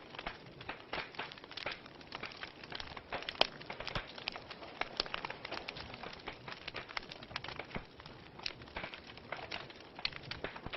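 Wood fire in a fireplace crackling, with a dense, irregular run of small snaps and pops over a low hiss; one sharper pop stands out about a third of the way in.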